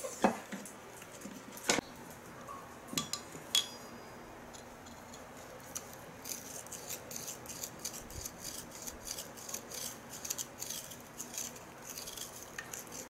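Hand-tool workshop sounds: a few sharp knocks and clinks, then a long run of quick, crisp strokes from about six seconds in.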